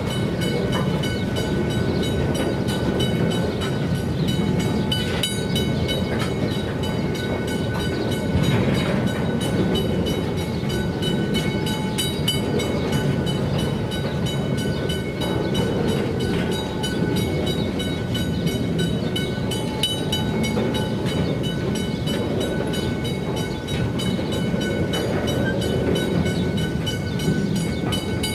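Grain hopper wagons rolling steadily over the level crossing, a continuous rumble and rattle of wheels on rail. Over it a McKenzie & Holland teardrop crossing bell keeps ringing in quick, even strokes while the gates are down.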